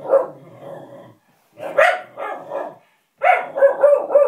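Dog barking at a monkey hand puppet she dislikes: one bark at the start, a few more a little before the middle, then a quick run of barks in the last second.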